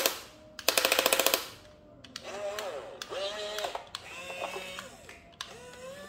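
A rapid rattle of sharp clicks, about a dozen a second and lasting under a second, from a toy remote-control excavator's plastic gear mechanism. It is followed by softer pitched sounds that waver up and down in short arcs.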